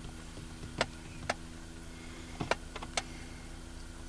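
Quiet car cabin: a few faint, sharp clicks and ticks, about five spread unevenly across four seconds, over a low steady hum.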